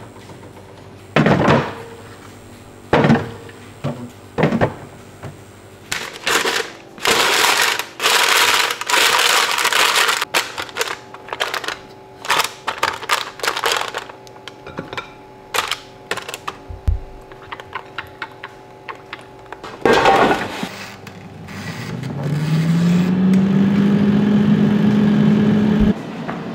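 Kitchen handling sounds: clear plastic fridge bins and packets being knocked, clicked and crinkled. From about 22 s in, an appliance motor spins up with a rising hum and then runs steadily.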